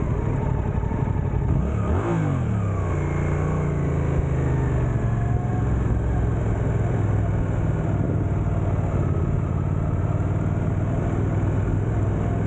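Suzuki GSX-8S parallel-twin engine pulling in first gear at low speed. Its pitch shifts about two seconds in, then it runs steadily, with wind noise over it.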